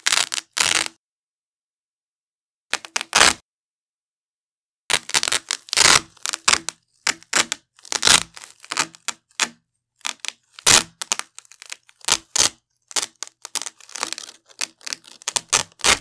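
Velcro hook-and-loop strap being ripped off a wide Velcro strap in short, crunchy tearing rips: a few in the first second, one more about three seconds in, then a long run of quick rips from about five seconds on, with silent pauses between them.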